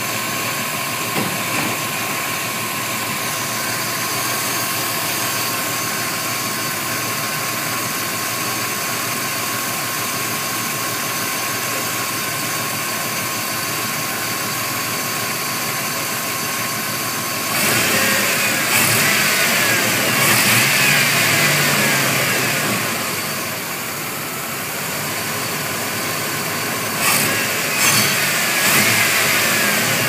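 1994 Chevy S10's 4.3-litre V6 idling steadily. About halfway through it is revved up for several seconds and then drops back to idle, and near the end it is blipped briefly a few more times. The owner's vacuum test shows this to be a healthy engine.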